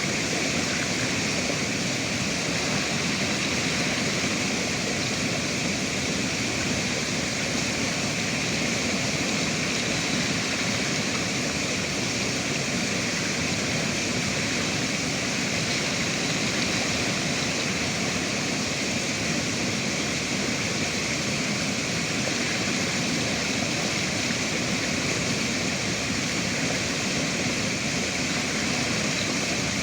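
River water rushing steadily, an even continuous roar with no distinct splashes or changes.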